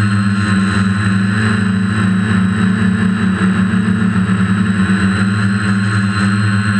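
DJI F450 quadcopter's four electric motors and propellers, heard from the camera on board: a loud, steady hum with a fluttering beat in the middle as the motor speeds drift against each other.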